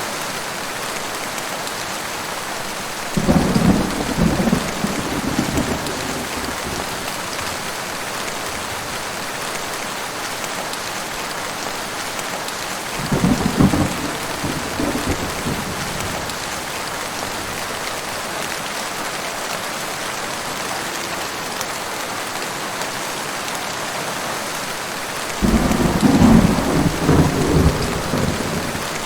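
Heavy rain falling steadily, with three rolls of thunder that each start suddenly and rumble on for a few seconds: one a few seconds in, one about halfway, and a longer one near the end.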